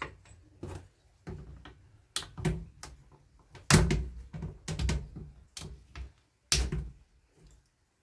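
Irregular clicks and knocks of a screwdriver and hands against a chainsaw's plastic and metal housing while the new electronic ignition coil is fitted and screwed in. About ten separate knocks, two of them louder, about four and six and a half seconds in.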